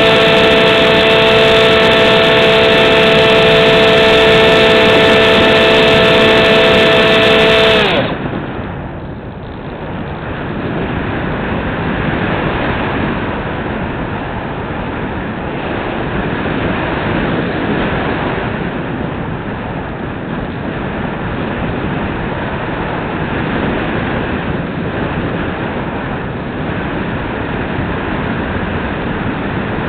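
Bixler 2 RC foam plane's electric motor and propeller whining at a steady pitch, then cutting off suddenly about eight seconds in. After that the airflow rushes over the onboard camera as the plane glides with the motor off.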